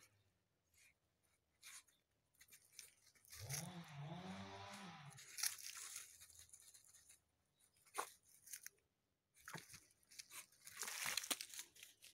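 Dachshund puppy digging in dry garden soil: claws scraping and crunching through the dirt in short scratchy bouts, busiest near the end. About three seconds in, a low, drawn-out two-part moan is heard.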